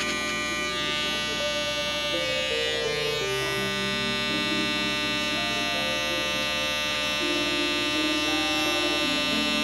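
Background music with slow, long-held notes that change pitch every second or two, over a steady electric buzz.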